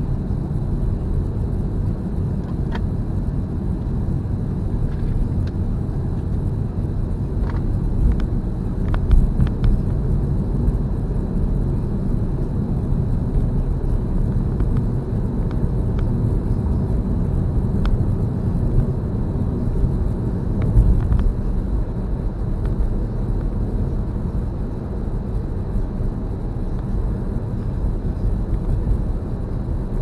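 Car driving along a rural road, heard from inside the cabin: a steady low rumble of engine and tyres on asphalt. A few faint ticks come through here and there.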